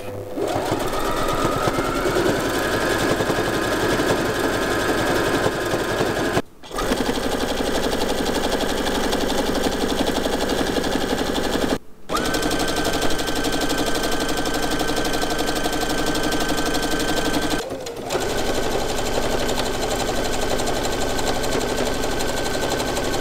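Brother domestic sewing machines stitching through canvas, a steady run of rapid needle strokes over the motor's whine. It comes as four runs in a row, one per machine, with short breaks between them.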